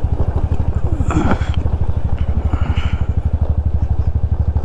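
Scooter's single-cylinder engine running steadily at low revs, an even rapid pulse, while it rides over a rough dirt track.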